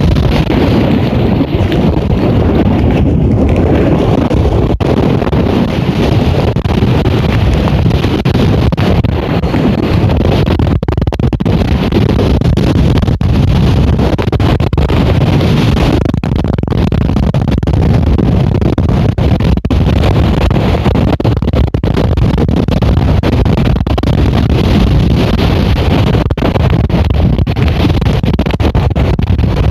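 Storm-force westerly wind buffeting the camera microphone: a loud, unbroken rush of noise, heaviest in the low end.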